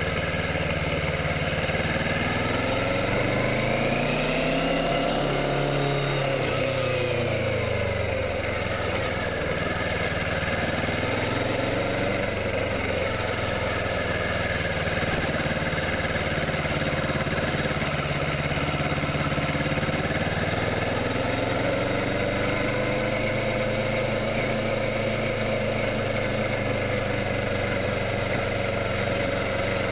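Kawasaki Ninja 650's parallel-twin engine running steadily, its pitch rising and then falling a few seconds in, with a slight swell again near the end.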